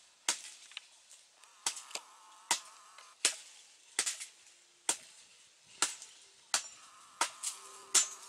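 Machete blade chopping into the fibrous husk of a coconut on the ground: a run of about ten sharp, separate chops, roughly one a second.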